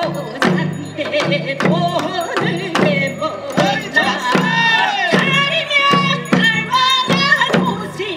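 Korean folk song sung over a pungmul band, with janggu and hand drums keeping a steady beat under the singing voice.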